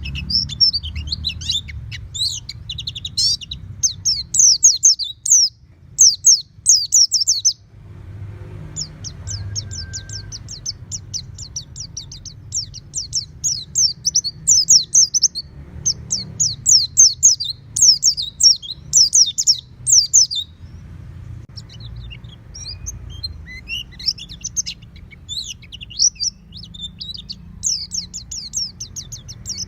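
White-eye (pleci) singing long, fast runs of high, rapid chirping notes, pausing briefly about 8 seconds and 21 seconds in. A low steady rumble lies beneath.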